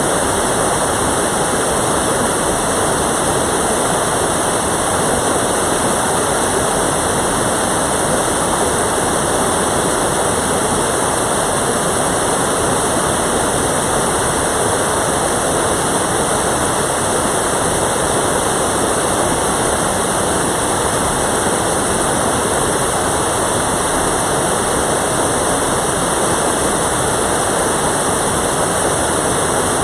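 Mountain stream water rushing steadily, a constant even rush with no change.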